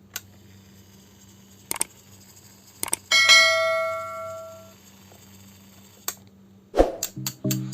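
A single bell-like metallic ring that fades away over about a second and a half, with a few sharp clicks before and after it over a low steady hum. Music starts again near the end.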